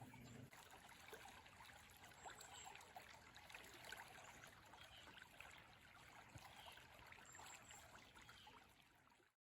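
Faint, steady flow of a stream, with small scattered ticks over it. The sound cuts off abruptly near the end.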